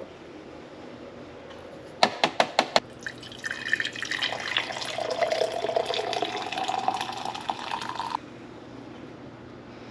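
A quick run of about five sharp clicks, then liquid poured into a vessel for about five seconds, the pitch of the pour rising as it fills, until it stops abruptly.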